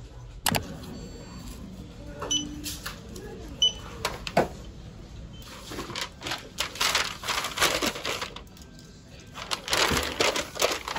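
Checkout counter sounds: a sharp click, two short electronic beeps, then a brown paper shopping bag rustling and crinkling as folded clothes are packed into it, loudest near the end.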